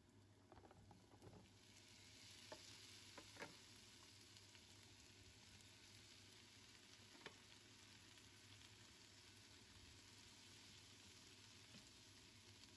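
Vegetables sizzling in hot oil in a nonstick frying pan as broccoli, snow peas and cauliflower are added and stirred. A few sharp clacks of vegetables and a wooden spatula against the pan come in the first few seconds and once more about seven seconds in. The sizzle sets in about a second and a half in and stays even.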